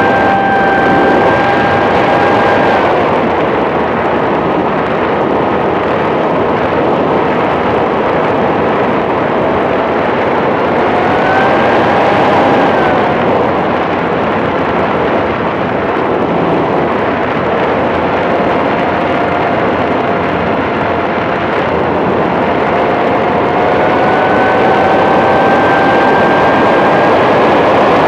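RC model airplane's motor and propeller running in flight, heard from a camera on the fuselage: a steady whine that drops in pitch about three seconds in, rises briefly around twelve seconds, and climbs again near the end, over a constant rushing noise.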